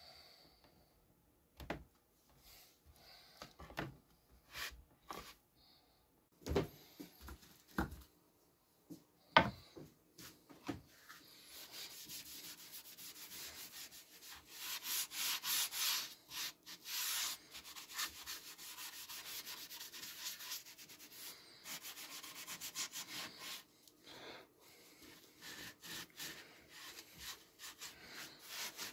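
A few knocks of wooden boards being handled and set down, then a sponge rubbing a brown finish onto MDF panels: a steady, rapid scrubbing that goes on to the end.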